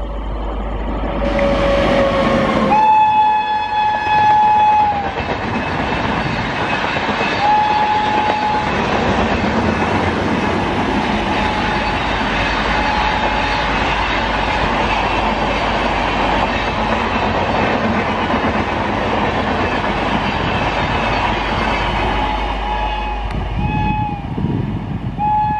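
An express train passes at speed, its WAP-7 electric locomotive's horn sounding in several long blasts over the steady rush and clatter of the coaches on the rails. Near the end another train's horn gives a few shorter toots.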